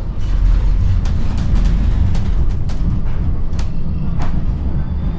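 NGT DXDD low-floor tram running through a track junction, heard from inside the car: a steady low rumble with a scattered series of sharp clicks and clacks as the wheels cross the points and crossings.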